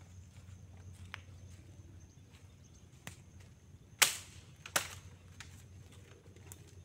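Dry branches snapping as they are broken by hand: two sharp cracks less than a second apart about four seconds in, the first the louder, with a few fainter twig cracks before them.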